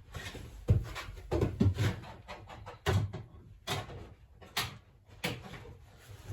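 A cabinet drawer and its slide releases knocking and clicking as they are worked by hand, with about eight separate knocks spread over the seconds.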